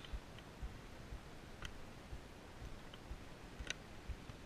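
A few faint, scattered sharp clicks of plastic trim caps being prised out of their sockets with a small flat-blade screwdriver.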